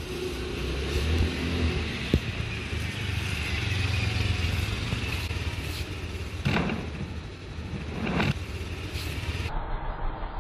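Small motor scooter engine running at low speed as it rides slowly around the courtyard, a steady low hum, with a sharp click about two seconds in and two brief noisy bursts in the second half.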